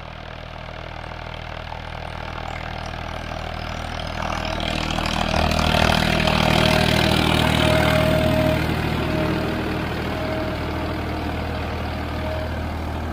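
Farmtrac 60 tractor's diesel engine running steadily under load while pulling a disc harrow. It grows louder as the tractor approaches, is loudest about six to eight seconds in as it passes close, then eases off slightly.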